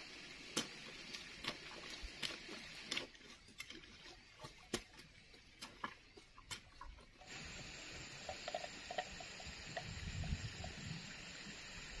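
Hand hoe chopping into clods of wet ploughed soil: irregular sharp strikes a second or so apart. About seven seconds in the sound changes abruptly to a steady outdoor hiss.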